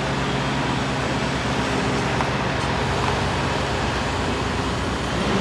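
Truck engine idling: a steady low throb under an even hiss.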